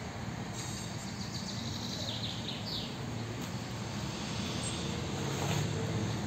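Outdoor background noise: a steady low rumble, with a few brief high chirps about two to three seconds in.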